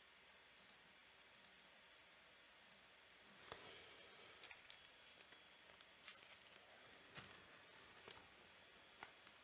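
Near silence, broken by faint rustling and light clicks as a trading card is handled between the fingers and set down on a cloth-covered table; the rustling starts about a third of the way in.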